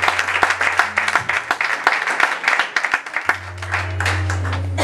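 Congregation applauding, the clapping thinning out about three seconds in, over held low notes from the church band.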